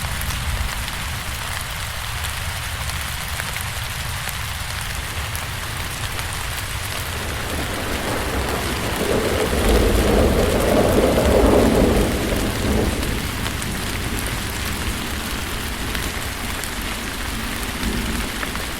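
Steady rain falling, with a low rumble of thunder that swells from about eight seconds in and fades by about thirteen seconds.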